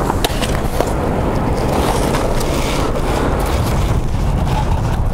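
Steady wind rumble buffeting the microphone with surf noise behind it, and a few light clicks and scrapes as a roll-up vinyl fish-measuring board is laid out on wet sand and a redfish set on it.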